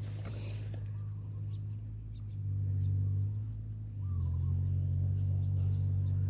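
Low rumble of wind buffeting the microphone, swelling about two and a half seconds in and again at four seconds. Faint insect buzzing and a couple of short bird chirps sound through it.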